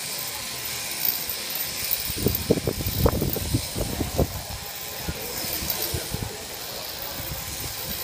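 Electric sheep-shearing handpiece on an overhead-drive shearing machine running steadily as a lamb is shorn. A run of dull knocks and thumps, the loudest sounds, comes about two to four seconds in.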